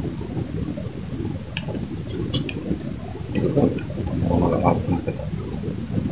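Sharp clicks and clinks from a spinning reel being worked as a fish is reeled in. Two louder clicks come about one and a half and two and a half seconds in, then a few fainter ticks, over a low murmur.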